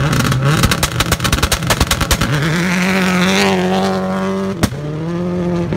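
Rally car accelerating hard away from the stage start, with rapid crackling for the first couple of seconds. The engine then climbs to a steady high-revving note, which breaks sharply once near the end and carries on a little lower.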